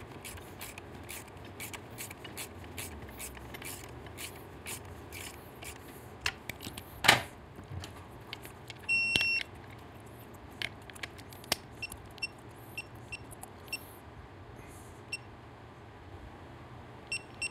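Ratchet clicking in short runs as a bolt is run down, with a sharp metal knock about seven seconds in. Then an electronic torque wrench beeps: one longer beep about nine seconds in, then a run of short beeps as it is set up to torque the exhaust bolt.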